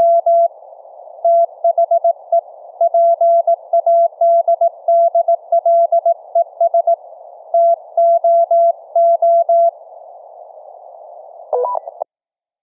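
Morse code (CW) sent as a single mid-pitched tone keyed at about 35 words per minute, carried over a Family Radio Service two-way radio link, with a steady hiss between the characters. The keying stops near the end, and about two seconds later the receiving FRS radio gives a short chirping tail sound before the audio cuts off.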